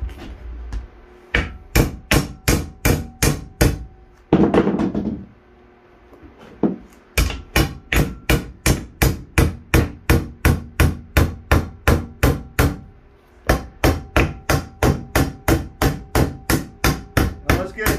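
Hand hammer striking a thin metal rod clamped in a bench vise, steady blows at about three a second in three runs with short pauses between, each blow leaving a faint metallic ring: the rod is being hammered to bend it into a go-kart brake rod. A brief burst of noise comes about four seconds in.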